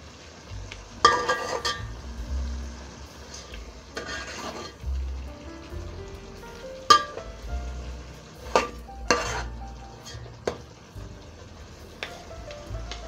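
A spoon scraping and knocking against a metal cooking pot as fish in tomato sauce is stirred and basted, over a low sizzle. The scrapes and sharp knocks come as a handful of separate strokes.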